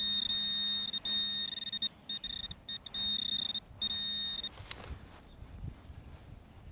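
Handheld metal-detecting pinpointer probe sounding a steady high-pitched beep with short breaks as it is pushed through a pile of dug soil. The tone signals metal close by, here a discarded metal squeeze tube. The tone stops about four and a half seconds in, followed by faint rustling of soil sifted by hand.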